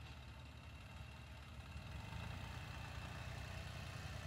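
Shibaura compact diesel tractor's engine running steadily at low revs, growing louder about two seconds in as the tractor comes closer.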